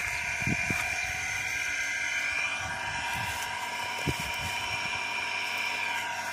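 Small engine driving a water pump, running steadily. A few dull thumps sound over it.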